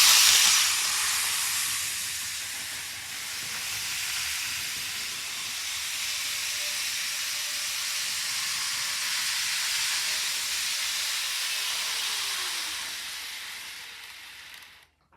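N gauge model train running on its track, a steady rushing hiss that is loudest at the start, then fades and cuts off near the end.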